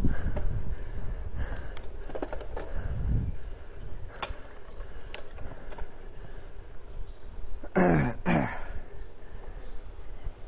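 Wind buffeting the microphone with a few sharp clicks, then about eight seconds in two short grunting exhalations falling in pitch.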